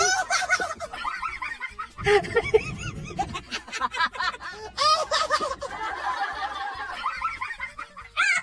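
Snickering laughter in quick, repeated bursts of high chattering calls.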